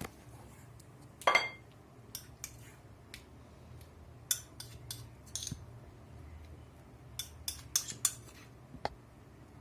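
A metal spoon clinking and scraping against a bowl as garlic-ginger-chilli paste is spooned onto raw chicken pieces: one ringing clink about a second in, then a string of short, light clicks and taps.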